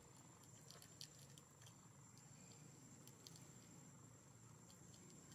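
Near silence: faint room tone with a thin steady high whine and a few light scattered clicks.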